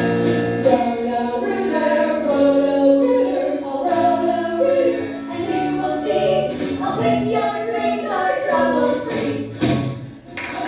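A group of voices singing with instrumental accompaniment, ending in a sharp accent and a brief drop-off shortly before the end.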